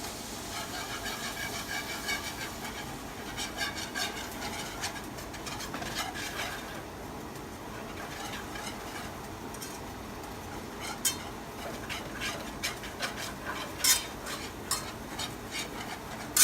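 A whisk stirring flour into melted butter and shallots in a nonstick pan to make a roux, its wires scraping and clicking against the pan in quick strokes, with a couple of sharper clinks in the second half.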